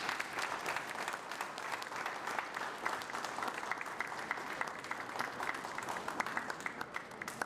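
Audience applauding: many hands clapping steadily, stopping near the end.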